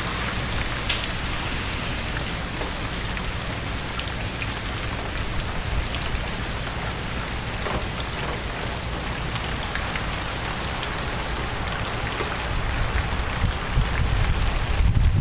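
Steady rain falling, with scattered ticks of individual drops in the hiss; a low rumble grows louder near the end.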